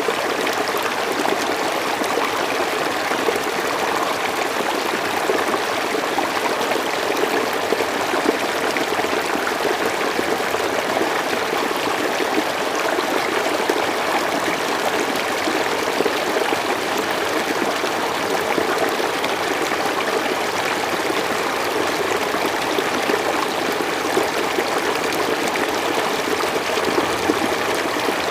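River water flowing steadily, a continuous even rushing and babbling of a stream over rocks.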